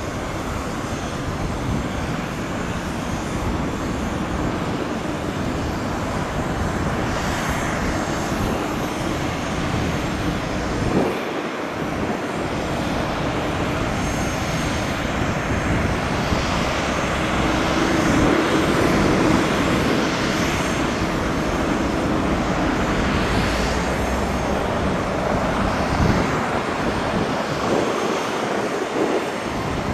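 Boeing 787-8 Dreamliner's twin jet engines running at taxi power as the airliner taxis by, a steady rushing jet noise.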